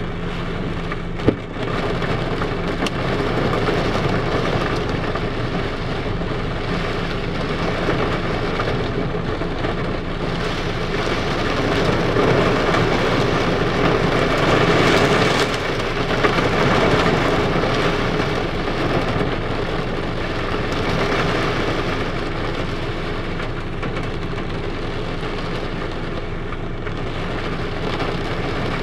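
Torrential hurricane rain hitting a car's roof and windshield, heard from inside the car. It is a dense, steady downpour that swells louder around the middle, with a sharp knock about a second in and a smaller one just past halfway.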